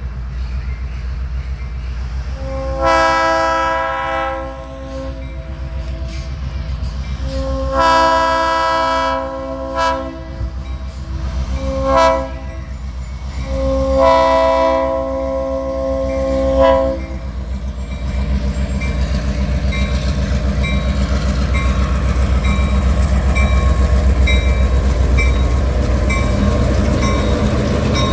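Diesel locomotive sounding its multi-note horn chord in the grade-crossing pattern, long, long, short, long, as it approaches. After that the engine rumbles and the train rolls past, with a bell dinging steadily.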